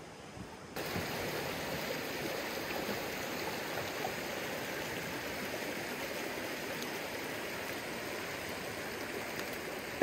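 Creek water running over granite rocks: a steady rushing that starts abruptly a little under a second in.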